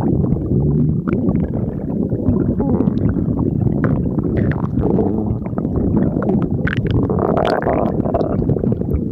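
Stomach growling: a continuous low gurgling rumble with irregular bubbly pops, and a squeaky whine that rises in pitch near the end.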